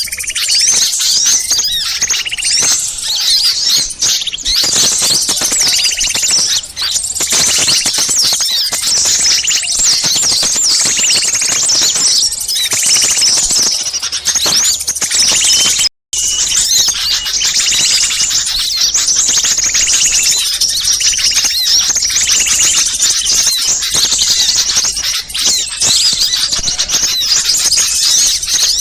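A dense, agitated chorus of many small birds chirping and twittering over one another, a bird-lure recording for calling in wild small birds. The sound cuts out for a moment about sixteen seconds in.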